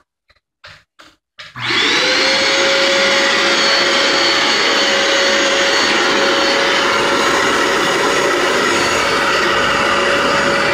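Bissell ProHeat 2X Revolution Pet Pro upright carpet cleaner switched on about a second and a half in, after a few light clicks: its suction motor spins up with a short rising whine, then runs steadily with a high-pitched whine over a loud rush of air.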